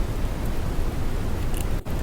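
Synthetic brown noise: a steady, deep hiss weighted toward the low end, with a few faint static crackles near the end and a momentary dip in level just before it ends.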